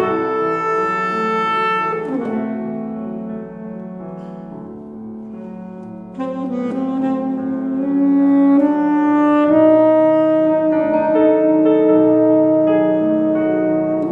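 Saxophone playing a slow melody of long-held notes over sustained accompaniment. It softens for a few seconds, then swells again about six seconds in.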